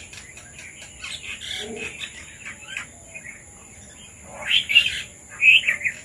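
Red-vented bulbuls calling in short, chirpy notes throughout, with a louder run of phrases from about four and a half seconds in.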